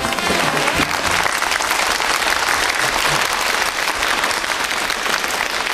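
Studio audience applauding steadily, with the last notes of brass swing music fading out in the first second.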